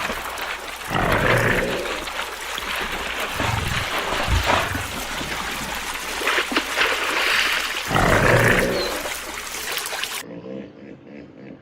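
A large wild animal calling loudly several times, each call about a second long, over a steady hiss.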